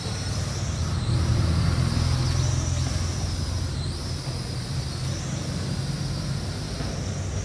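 Small toy quadcopter's motors and propellers buzzing with a high whine that dips and rises in pitch as it flies, over a low rumble that swells about a second in.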